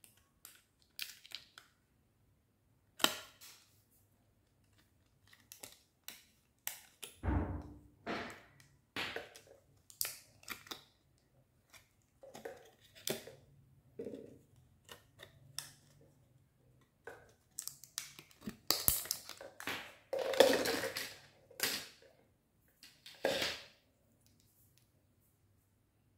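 Hands handling in-ear earphones and their plastic packaging: irregular clicks, taps and short rustles, with a dull thump about seven seconds in and a busier, louder patch of handling near the end.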